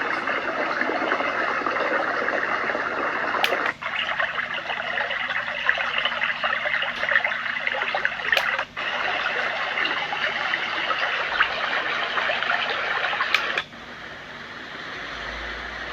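Small white noise machine playing a steady hiss of water-like noise through its little speaker. About every five seconds there is a button click and a brief cut-out as it switches to the next sound setting. After the third switch a quieter sound begins and slowly swells.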